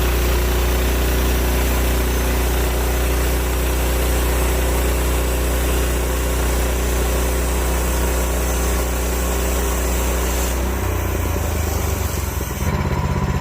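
Woodland Mills HM130 bandsaw sawmill's small gas engine running steadily. Its note changes about eleven seconds in, and near the end it settles into an even, pulsing run.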